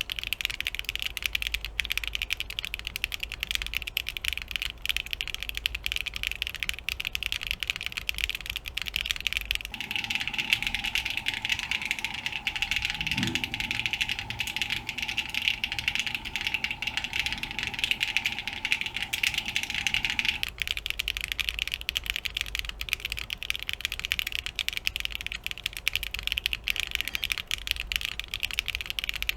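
Continuous typing on a Geon Frog TKL mechanical keyboard with stock Sillyworks Hyacinth V2 long-pole switches on an aluminium leaf-spring plate: a dense run of loud, clacky keystrokes.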